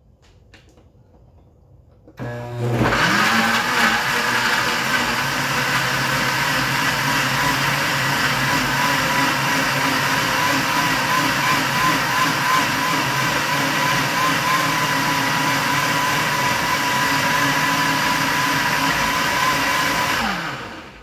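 Countertop blender purées chunks of carrot, celery, apple and lemon in water. Its motor starts about two seconds in with a rising whine, runs loud and steady, then winds down with a falling pitch just before the end.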